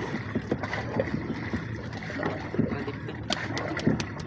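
Dragon boat paddles stroking through the water: splashing and gurgling, with irregular short clicks.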